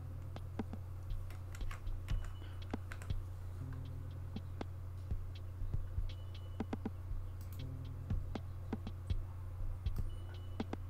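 Scattered mouse clicks and light taps at a computer, irregular and a few per second, over a steady low hum.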